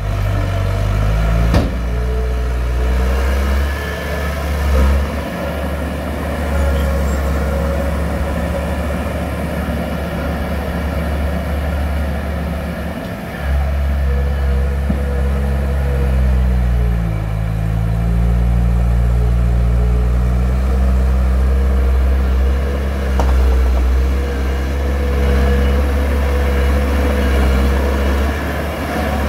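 Engine of heavy machinery running steadily, its pitch shifting up and down a few times as the load or revs change.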